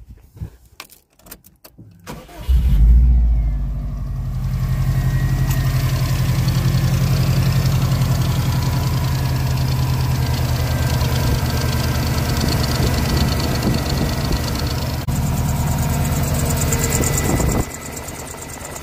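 Subaru Impreza flat-four boxer engine being started: a few clicks, then it catches about two and a half seconds in, flares briefly and settles to a steady idle, running free of squeal with its newly replaced A/C belt idler pulley. Near the end it cuts to a quieter recording of the engine running.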